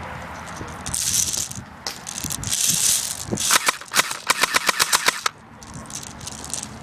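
An airsoft gun fired in a rapid string of about a dozen sharp shots, roughly seven a second, cutting off suddenly. Before the string come two short bursts of hissing noise.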